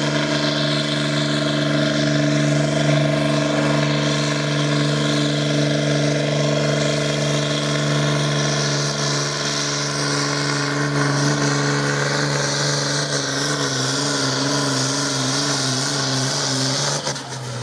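Competition pulling tractor's engine running hard and steady at high revs, its pitch starting to waver over the last few seconds before the sound cuts off abruptly near the end.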